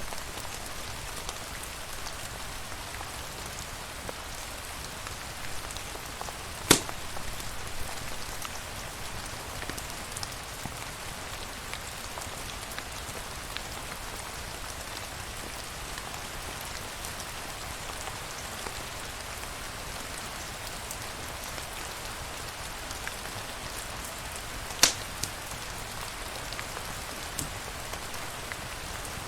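Steady rain falling on a surface, an even hiss with scattered light drop ticks. Two sharp pops stand out, one about seven seconds in and one near the end.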